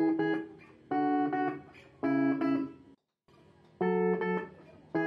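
Vault ST1 strat-style electric guitar played through a small Palco practice amplifier: chords strummed in pairs of quick strokes, about one chord a second, each ringing and dying away. There is a brief total break about three seconds in.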